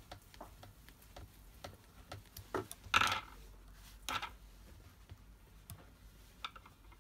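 Small clicks and taps of plastic airsoft hop-up parts and a screwdriver being handled on a tabletop, with a louder clatter about three seconds in and another about a second later.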